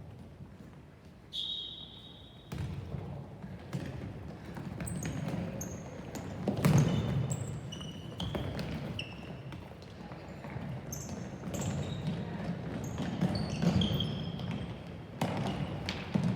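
Ball game on a hard indoor court: a ball thudding and bouncing, with many short high squeaks like sneakers on the floor, over the hum of players and spectators in a large hall.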